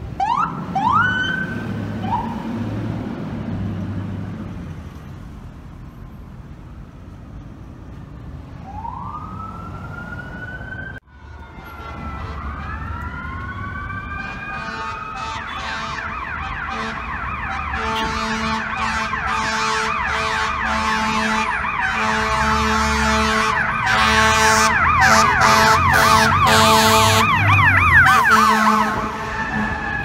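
FDNY emergency vehicle sirens. First come a few short rising electronic siren sweeps. After a brief break about a third of the way in, a fire apparatus's fast electronic yelp comes in with steady air-horn tones, growing louder and loudest just before the end.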